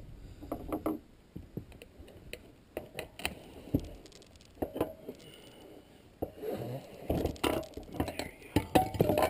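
Steel screwdrivers clinking, tapping and scraping against a dirt bike's spoked wheel rim as they lever a tight knobby tire bead over it. The sounds are irregular knocks and clinks, more frequent in the second half.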